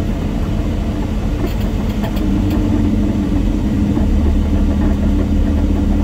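Semi truck's diesel engine running steadily while driving, heard from inside the cab with a low rumble of engine and road noise. A few faint clicks come about two seconds in, and the rumble grows a little stronger about four seconds in.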